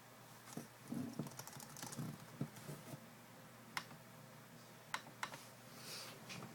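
Desk handling noises: a scatter of soft knocks and taps in the first half, then a few sharp, separate clicks.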